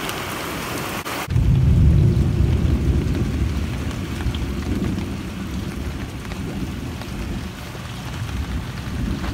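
Heavy rain falling in a steady hiss, cut off suddenly about a second in by a deep low rumble that is loudest just after it begins and slowly eases.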